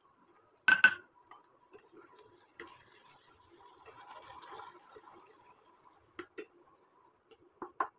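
Wooden spatula stirring chopped vegetables in a non-stick kadai, with one loud ringing clink against the pan about a second in and a few light taps on the pan near the end.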